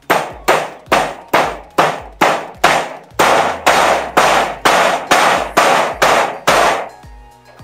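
Steady hammering, about two sharp ringing strikes a second, loud and evenly paced, stopping near the end; a low musical beat runs underneath.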